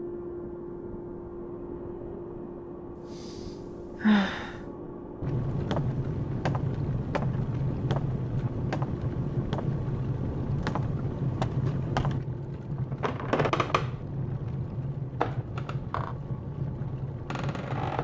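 Film soundtrack sound effects. A held musical note fades, a brief swell comes about four seconds in, then a low steady hum sets in with evenly spaced light knocks, a little under two a second.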